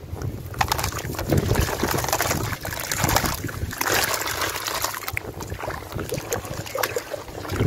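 Dry sand-cement chunks crushed and crumbled by hand into a plastic tub of muddy water, a dense gritty crackle as the crumbs fall in. Later the hands squelch and slosh through the wet slurry.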